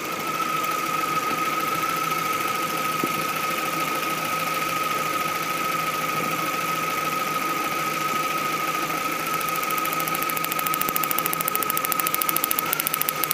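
Car engine idling rough and misfiring, with a steady high whine over it. The misfire comes from a spark plug wire on a wasted-spark coil leaking current to ground. From about two-thirds of the way in, a rapid crackle of ticks joins it, in keeping with sparks jumping from the leaking cable to a grounded screwdriver.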